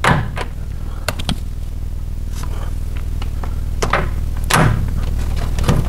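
Hand tools working on the shock absorber mounting bolt of a Land Rover axle: a handful of short, sharp metal knocks and clicks spaced irregularly over a few seconds, over a steady low hum.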